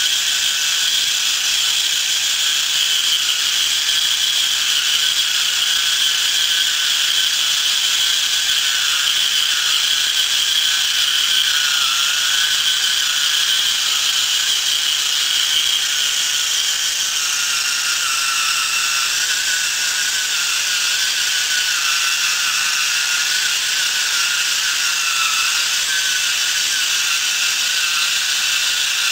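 Small battery-powered electric motor and gearbox of a homemade toy crawler tractor whirring steadily as it drives the tracks. Its pitch drops slightly a little past halfway, as the tractor climbs onto the chipboard boards under load.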